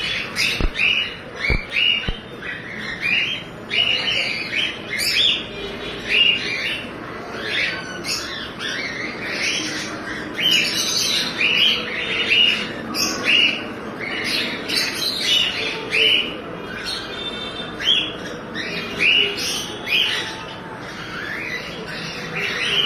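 A colony of cockatiels and budgerigars calling together: a steady stream of short, overlapping squawks and chirps, several a second.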